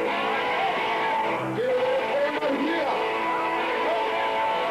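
Live punk band's distorted electric guitar ringing in held chords, with voices shouting over it and no drumbeat.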